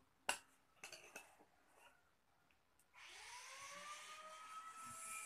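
A spoon clinks sharply against a glass once, then taps faintly a few more times. From about three seconds in, a faint whir with a hiss starts up, rising in pitch and then holding steady.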